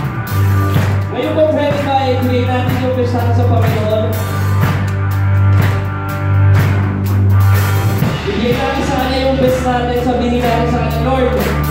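Live band music heard from beside the drum kit: drums and cymbals struck in a steady beat over a sustained bass line, keyboard and a singing voice. The bass note changes about eight seconds in.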